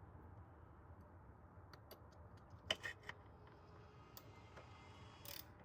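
Near silence broken by a few faint clicks and taps of a hand tool on a TPI intake runner bolt: a short cluster of three about three seconds in, with single clicks before and near the end.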